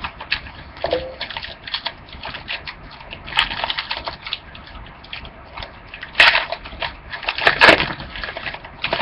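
Foil trading-card pack being torn open and the cards handled: a string of crackles and clicks, with louder crinkling bursts about three, six and seven and a half seconds in.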